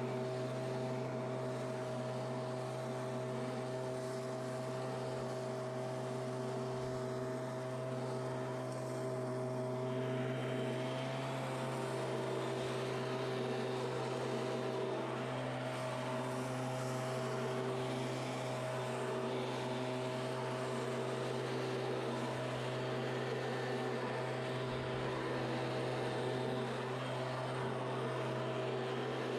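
Handheld Stihl gas leaf blower's two-stroke engine running steadily, with the rush of air from the nozzle as it blows dry leaves; the airy hiss grows somewhat about a third of the way in.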